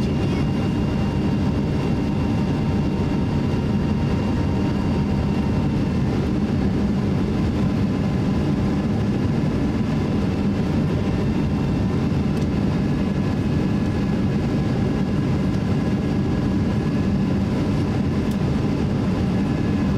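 Steady cabin noise inside a Boeing 777-300 on final approach: the rush of airflow and the jet engines running, with a few faint, steady whining tones above the low rumble.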